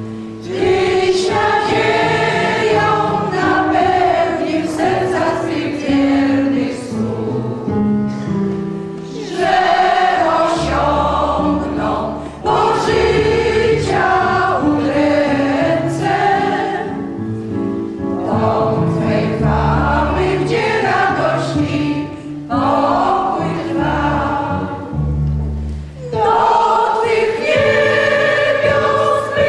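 Mixed church choir, mostly women's voices with a few men, singing a hymn in sustained phrases with short breaks between them, in a church's reverberant space.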